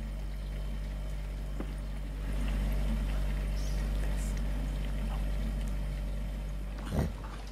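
Steady low hum, growing a little louder about two seconds in, with a single sudden thump near the end.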